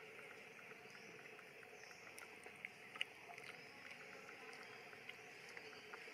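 Near silence: faint steady outdoor background hiss with scattered small clicks, one sharper click about three seconds in.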